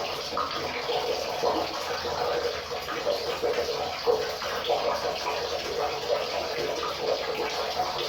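River water flowing and babbling over rocks: a steady rush with many small splashes and gurgles.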